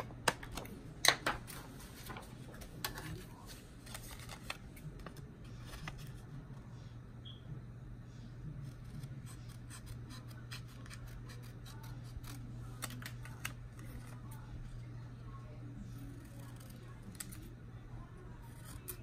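Scissors snipping through paper as a printed image is cut out: irregular short snips, in small clusters, the loudest about a second in.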